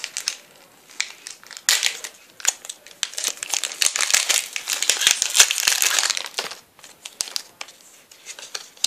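Foil Pokémon booster pack wrapper crinkling as it is handled and opened. It is densest from about two to six and a half seconds in, then gives way to a few light ticks and rustles.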